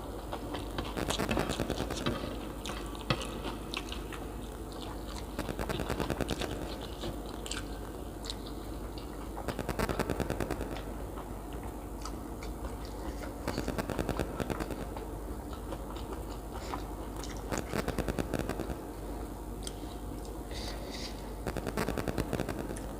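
A person chewing and biting food close to the microphone, mukbang style. The loud, wet, crunchy chewing comes in spells of about a second, every three to four seconds.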